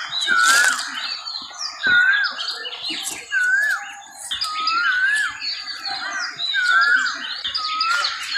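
Several birds singing together. A short wavy whistled phrase repeats about once a second, over a busy mix of higher chirps and trills.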